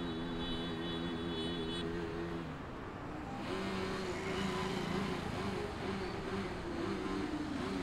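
KTM RC 390's single-cylinder engine held at high revs during a burnout, its pitch wavering up and down; the revs drop briefly about two and a half seconds in, then climb back and hold.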